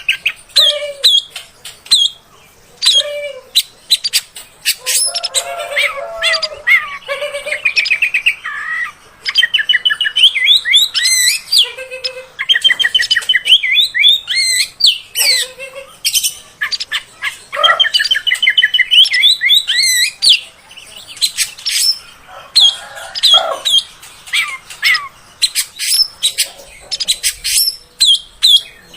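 Oriental magpie-robin (kacer) singing a long, unbroken, varied song of short whistles, fast repeated trills and rasping notes.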